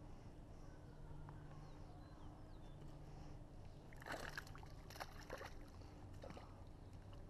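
A hooked bass splashing at the surface as it is brought in. There is a burst of splashes about four seconds in and a few more over the next two seconds, over a faint low hum.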